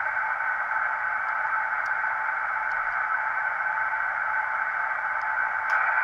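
Receiver static from a homebrew KWM4 SSB transceiver being tuned by keypad across an empty band: a steady hiss with no signal in it. It gets a little louder near the end, and there are a few faint ticks.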